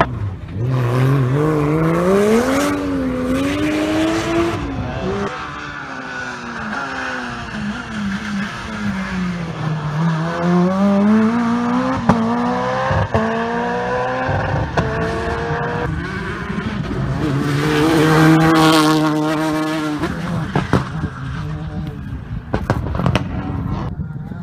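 Rally car engines at full throttle, several cars in turn: the engine note climbs steeply through each gear and drops back at each shift or lift-off, highest and loudest about three-quarters of the way through. A few sharp cracks come in between.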